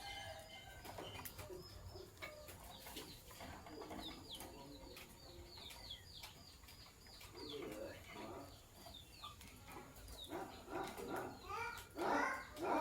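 Lovebirds chirping: a quick run of short, high, falling chirps through the middle, then lower, louder chattering calls near the end.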